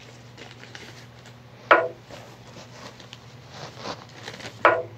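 Chess app's piece-move sound effect, a short sharp clack each time a piece lands: twice, about three seconds apart, once about two seconds in and again near the end. Faint ticking and a low steady hum lie underneath.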